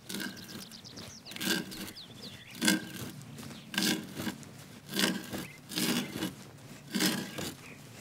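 An old hand auger boring into the wood of a trough's floor: a rhythmic scraping creak of the bit cutting wood with each turn of the handle, about once a second.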